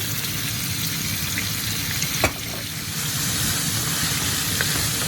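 Chicken frying in olive oil in a pan, a steady sizzle, with one sharp knock about two seconds in.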